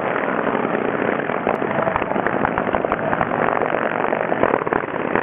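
Antique board-track racer motorcycle engines running hard as several bikes race around a dirt oval, a dense, uneven engine clatter.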